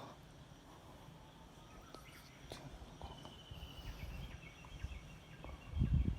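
Quiet outdoor ambience. A faint, rapid high trill of an animal call lasts about two seconds in the middle, with a few light clicks, and a low rumble comes in near the end.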